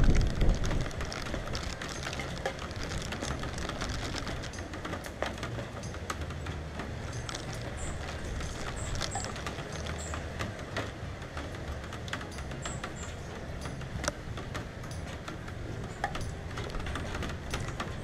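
Steady rain with single drops tapping close by, over a low rumble of gusting wind.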